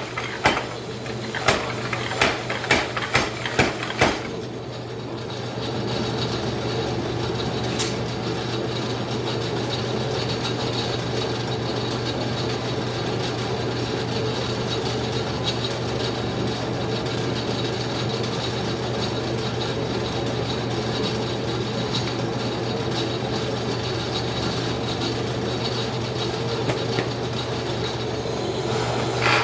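Power hammer striking a quick series of blows, about seven in the first four seconds. Then comes a steady mechanical rattle with a constant low hum that lasts the rest of the time.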